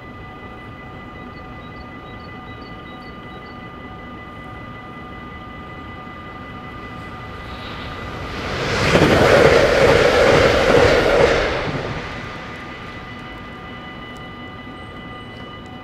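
A level-crossing warning bell rings steadily and unbroken. A train passes through the crossing: its rumble swells from about eight seconds, is loudest for about three seconds, and dies away a few seconds before the end.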